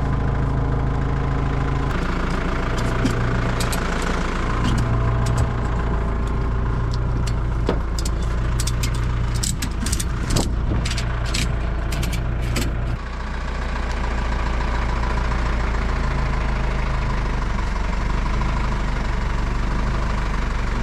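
An engine idling steadily, with a quick run of sharp clicks about halfway through. The engine note dips and changes slightly just after the clicks.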